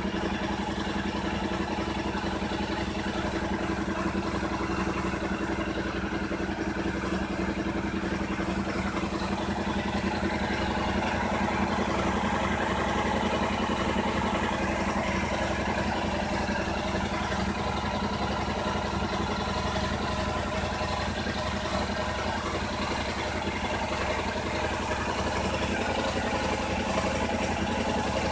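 Yamaha RMAX 1000 side-by-side's parallel-twin engine idling steadily.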